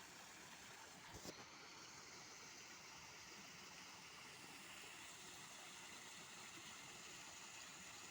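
Faint, steady rush of a waterfall, with a brief soft knock about a second in.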